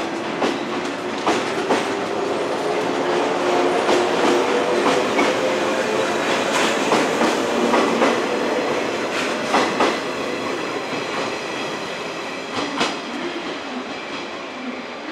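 113 series electric train pulling out and accelerating past: the traction motors' hum rises slowly in pitch while the wheels clack over rail joints. It is loudest about eight seconds in, then eases as the train draws away.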